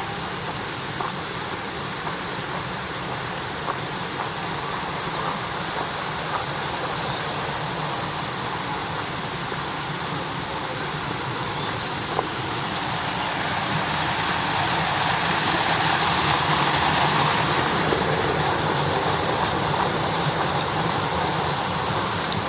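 Shiraito Falls, thin curtains of spring water spilling over a wide rock face into a pool: a steady rush of falling water that swells louder about two-thirds of the way through.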